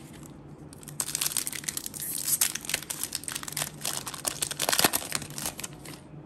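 Foil wrapper of a Pokémon trading card booster pack crinkling and tearing as it is ripped open by hand, a dense crackle starting about a second in and lasting about five seconds.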